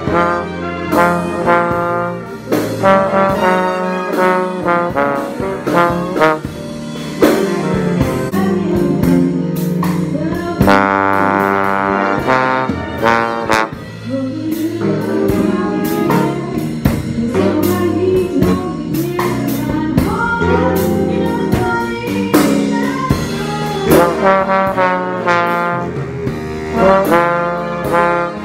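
A big band playing a jazz chart, the brass section to the fore, with drum and cymbal hits throughout. A bass trombone sounds right beside the microphone and drops out for a short stretch midway. A loud held brass chord comes about 11 to 13 seconds in.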